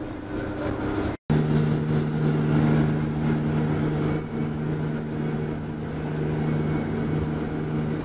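Minibus engine humming steadily at cruising speed, with road and tyre noise, heard from inside the cabin. The sound drops out for a split second about a second in.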